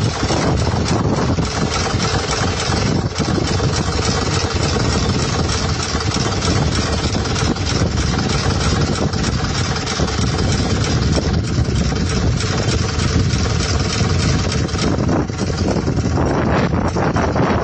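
A vehicle's engine running steadily, with a continuous dense rumble of motor and road noise.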